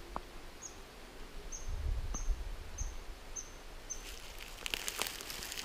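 A series of six short, high chirping calls spaced roughly half a second apart, which the hunter takes for a red squirrel. Crackly rustling follows near the end.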